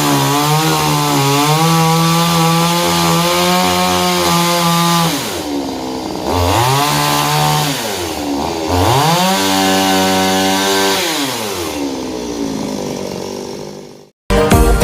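Two-stroke chainsaw cutting wood at full throttle, the engine dropping to idle about five seconds in, revving up again twice, then falling off and fading out near the end.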